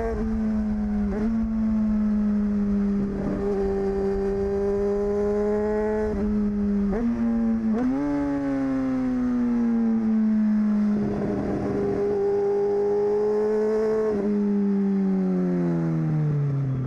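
Honda CBR954RR's inline-four engine running through an exhaust with the dB killer removed. It holds a fairly steady engine speed, broken by several short, sudden steps in pitch, then the revs fall away steadily near the end.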